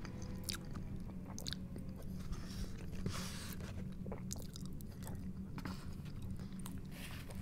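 Close-miked chewing and biting of a mouthful of food, with wet mouth clicks and smacks scattered through, and a fork scooping from a styrofoam takeout container. A steady low hum runs underneath.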